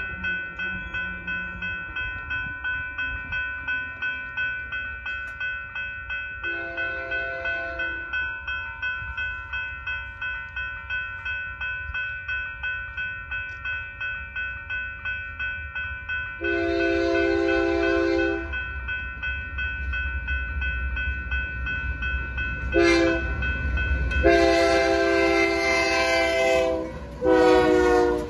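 Railroad crossing bell ringing in a steady, even rhythm while an approaching Union Pacific freight train, led by GE AC4460CW locomotive UP 7024, sounds its air horn for the crossing: two long blasts, a very short one, another long one, then a final shorter blast. The train's low rumble builds through the second half, and the locomotives pass through the crossing near the end.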